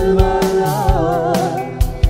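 A song playing: a held, wavering sung line over drums and other instruments.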